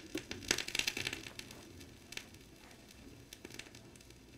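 Turntable stylus riding the lead-in groove of a vinyl record: crackles and pops of surface noise before the recording begins, densest about half a second to a second and a half in, then fainter.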